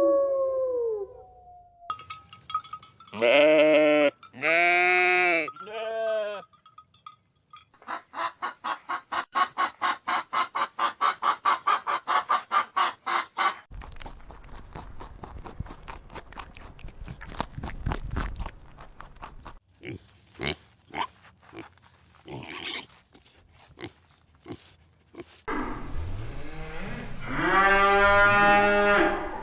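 A series of farm animal calls, one animal after another: three short pitched calls about three seconds in, then a long run of rapid pulsed calls, then a stretch of clicking and scraping noises, and one drawn-out pitched call near the end.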